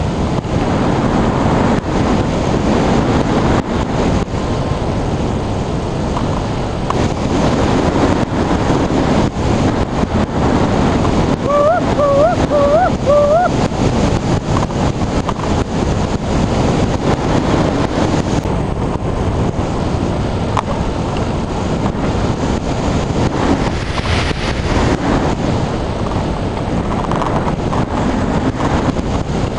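Wind rushing over the microphone of a hang glider in flight, loud and steady with constant buffeting. Near the middle comes a quick run of four short chirps, each dipping and then sweeping up in pitch.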